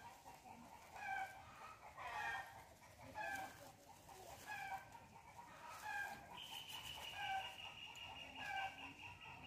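Chicken clucking repeatedly, short calls about once a second. About six seconds in, a steady high-pitched tone joins and holds.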